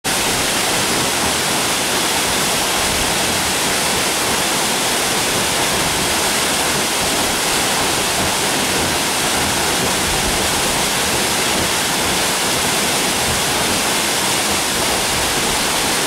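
Waterfall: water falling steadily over a rock face, an even, unbroken hiss.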